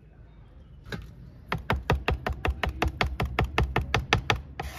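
Kitchen knife chopping fresh coriander on a wooden cutting board: a fast, even run of blade knocks on the board, about six a second, after a single knock about a second in.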